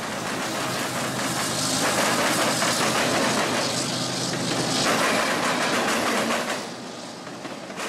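Freight train of CSX autorack cars passing close by, wheels rolling on the rails, with the steady drone of a mid-train diesel locomotive's engine. The engine drone fades after about five seconds and the train noise drops off near the end.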